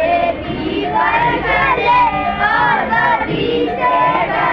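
A group of children singing a prayer together in unison, palms joined.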